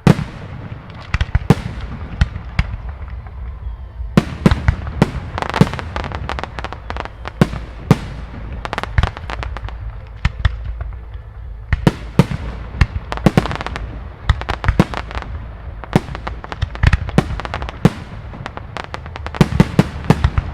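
Aerial firework shells bursting in quick, irregular succession: many sharp bangs over a continuous low rumble.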